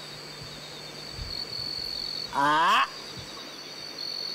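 A man's voice imitating a monkey call: one loud call rising in pitch, about half a second long, roughly two and a half seconds in. Insects shrill steadily in the background with a high tone that comes and goes.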